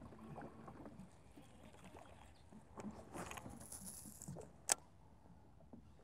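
Faint handling sounds of an angler fishing from a boat deck: soft knocks and rustles, a brief hiss a little past halfway, and one sharp click about three quarters of the way in.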